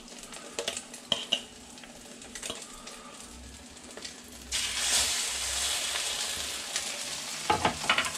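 Egg-battered bread frying in oil in a pan, with a few light clicks. About four and a half seconds in, the sizzle suddenly becomes much louder and stays loud.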